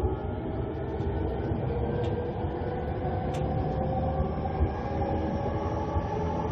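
Running sound of a JR E231-500 series electric train heard from on board: the whine of its Mitsubishi IGBT-VVVF inverter and traction motors slowly rising in pitch as the train gathers speed, over a steady rumble of wheels on rail.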